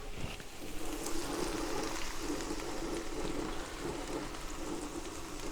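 Food sizzling on the hot flat-top of a Pit Boss Ultimate Griddle: a steady hiss.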